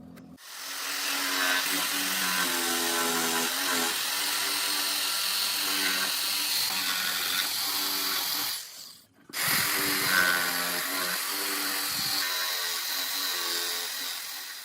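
A power tool running steadily, its pitch shifting now and then as it works. It cuts off abruptly about nine seconds in and starts again half a second later.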